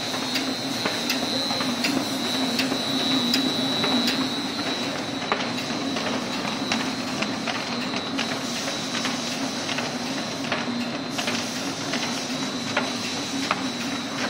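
Greyboard V-grooving machine running steadily with a constant hum and a high whine, and a sharp click about every three quarters of a second as boards feed through. More hiss comes in about two thirds of the way through.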